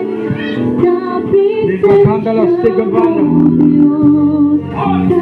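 Worship music: many voices singing over long, held instrumental chords.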